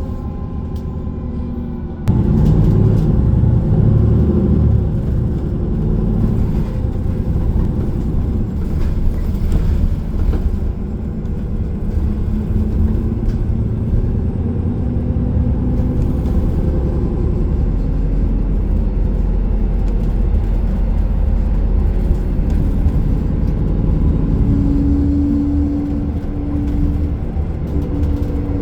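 Bus running along a city road, its engine and tyre rumble heard from inside the cabin. The noise jumps abruptly louder about two seconds in, and a steady hum comes in for a couple of seconds near the end.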